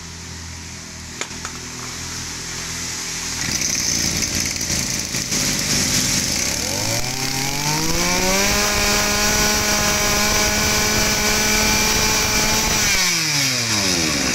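Echo (Kioritz) brush cutter's small 24 cc two-stroke engine running, then revved: its pitch climbs smoothly over about two seconds to full throttle, holds there in a loud scream for about four seconds, and drops back as the throttle is released near the end.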